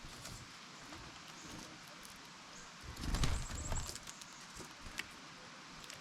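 Chickadee landing and hopping on the camera: a cluster of soft taps and scratches about three seconds in, with a brief high chirp, and a single tick a little later.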